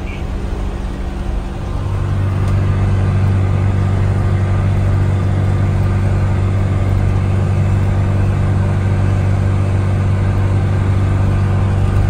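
Massey Ferguson 5S.145 tractor pulling a trailed disc mower-conditioner through thick alfalfa, running steadily under load as a deep, even drone. The drone steps up louder about two seconds in and then holds.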